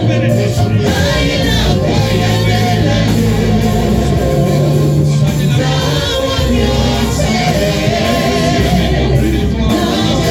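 Gospel worship music with several voices singing over a steady band and bass line.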